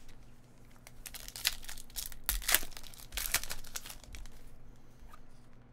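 Foil wrapper of a Panini Select basketball card pack torn open and crinkled as it is pulled off the cards. It comes as a quick run of sharp rustles and tears between about one and four seconds in.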